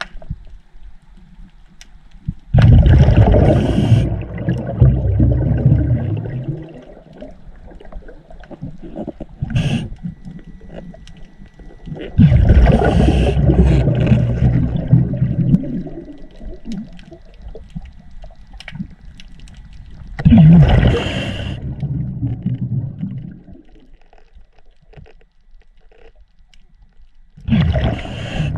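Scuba diver breathing underwater through a regulator: four bubbling exhalations, each lasting two to four seconds, roughly every eight seconds, with quieter stretches between.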